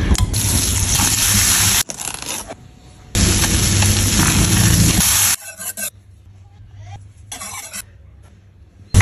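Butter and then a butter-and-flour roux sizzling in a non-stick pan while stirred with a silicone spatula; the sizzle stops twice, first about two seconds in and again past the middle. The rest is quieter stirring and whisking of a thick cheese sauce, with small clicks.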